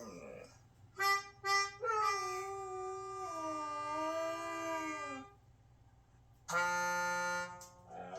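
Melodica playing two short notes and then a long held note, while a Siberian husky howls along in a wavering, sliding pitch over the held note; after a short pause the melodica sounds a lower steady note.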